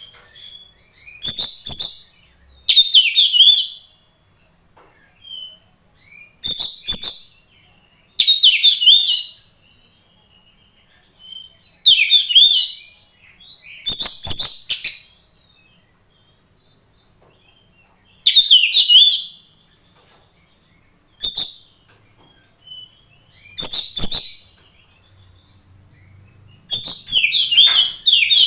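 Caged oriental magpie-robin (kacer poci) singing in full voice (gacor): about ten short, loud bursts of song, one every two to three seconds, with brief pauses between.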